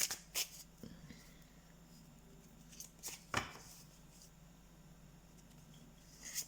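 Tarot cards being handled and laid on a table: a few soft clicks and slaps in the first second, a sharper card slap about three seconds in, and another near the end.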